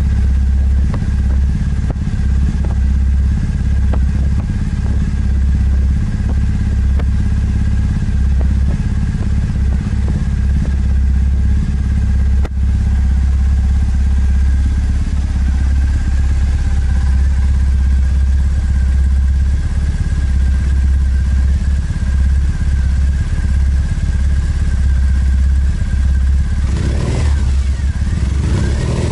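Triumph Bonneville SE's air-cooled parallel-twin engine idling steadily through freshly fitted AELLA slip-on mufflers, with a deep, even exhaust note. Near the end the throttle is blipped once, and the pitch rises and falls back.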